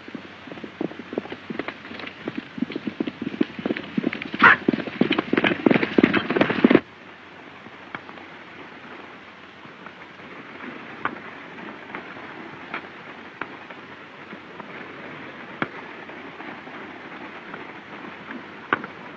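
Old film soundtrack of a gunfight: a rapid, thickening run of gunshots mixed with hoofbeats for about seven seconds, which stops at an abrupt cut. After that, a steady soundtrack hiss with scattered single shots.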